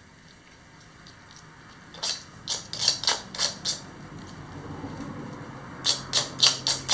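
Yorkshire terrier's claws clicking on a glazed ceramic tile floor as the dog moves about: a quick run of about six sharp clicks starting about two seconds in, and another run of about five near the end. A low steady hum sits underneath in the second half.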